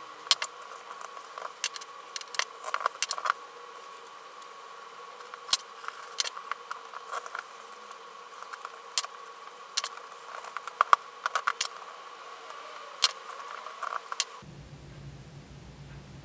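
Irregular sharp clicks and scrapes of a hand tool working the edge of a thick leather card case clamped in a vise, over a faint steady hum. Near the end this gives way abruptly to the steady low hum of a motor-driven buffing wheel spinning.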